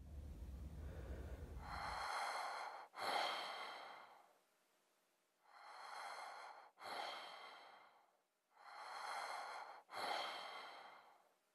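Slow, deep breathing: three breaths about three seconds apart, each a drawn-in breath followed straight away by a breath out. A low hum is heard in the first two seconds.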